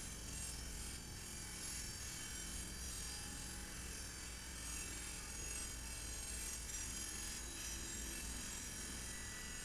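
Faint, steady low engine rumble.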